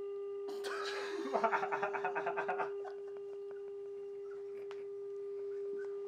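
A man laughing hard in quick pulses for about two seconds, over a steady held electronic tone that carries on after the laughter stops.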